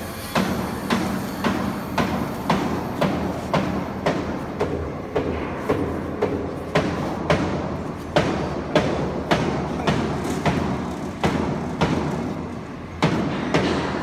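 CNC foam cutting machine running, a steady mechanical noise with a sharp regular knock about twice a second.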